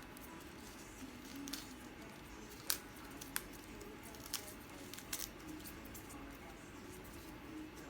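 Scissors snipping rose stems: several short, sharp snips about a second apart.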